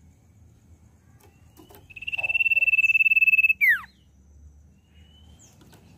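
Common iora song: a long, high, steady trilled whistle lasting about a second and a half, starting about two seconds in and ending in a sharp downward-sliding note.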